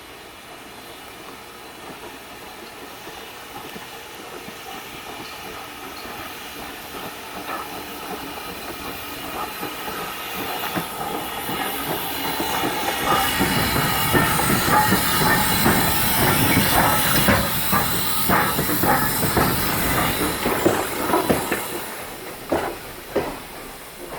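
Norfolk & Western No. 475, a 4-8-0 steam locomotive, passing close by on an adjacent track, hissing steam with a rapid run of knocks and clanks. It swells over about ten seconds, stays loud for several seconds, then fades quickly near the end.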